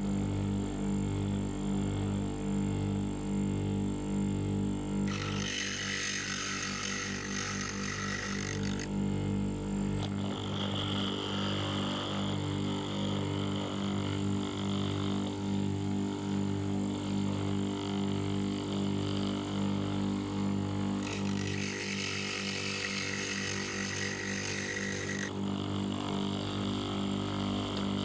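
Bench grinder motor running with a steady hum. Twice, for about four seconds each, a quarter of the way in and again about three-quarters through, a steel drill bit is pressed against the abrasive wheel, giving a harsh grinding hiss as its tip is sharpened.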